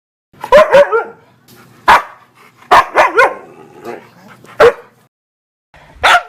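Dog barking in irregular bursts, about nine sharp barks, a few with a short yelping pitch bend.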